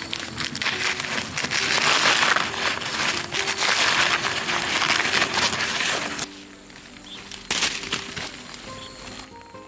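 Loud rustling, crinkling noise for about the first six seconds, over light background music. After that only the music carries on, with one sharp knock near the end.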